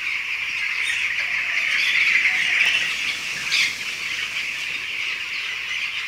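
A large flock of broiler chicks peeping together, a dense, steady chorus of high cheeps with a few louder single calls about halfway through.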